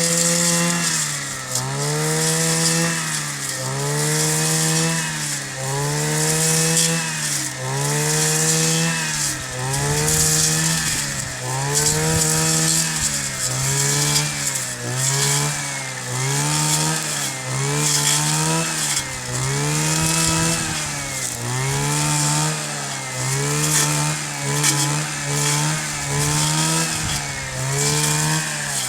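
Kioritz 260 brush cutter's two-stroke engine running, its speed rising and falling over and over, every second or two.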